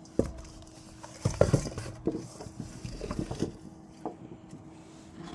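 Freshly dug potatoes being poured out of a container, tumbling and knocking against each other in a scatter of dull thumps and clatter. The loudest rush comes about a second and a half in.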